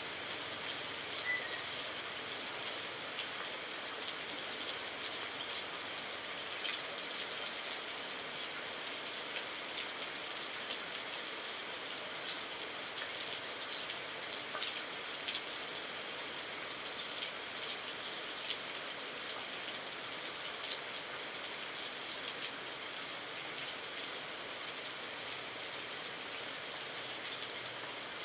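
Steady rainfall: an even hiss of rain with many small drop ticks scattered through it.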